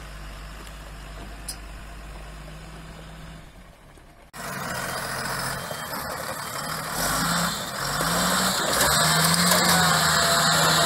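Tata 715 TC 4x4 truck's Cummins diesel engine running at low revs. About four seconds in it becomes much louder and works under load as the truck climbs a gravel slope, its revs rising and falling over a rushing noise.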